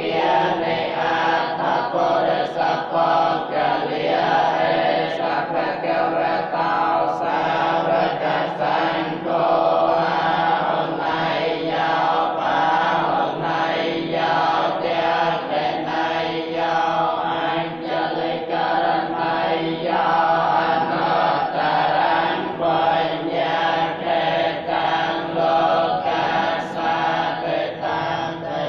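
Buddhist monks chanting together in unison, a continuous stream of many voices without a break.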